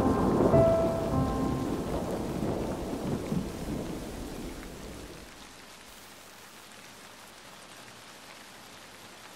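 Thunder rumbling over steady rain, the rumble dying away over about five seconds; then only the even hiss of rain, much quieter.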